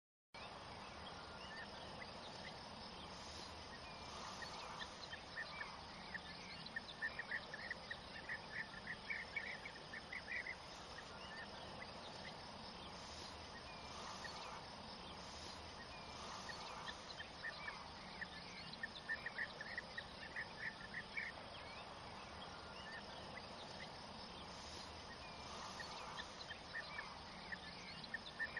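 Outdoor field ambience: a steady background of insects, with repeated bursts of short, high chirps from crickets or small birds and softer lower calls now and then. It starts after a brief silence.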